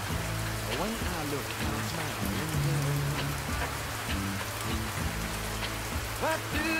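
Rain-like patter and hiss with slow music over it: held low tones, a few plain notes and sliding notes, one glide about a second in and another near the end.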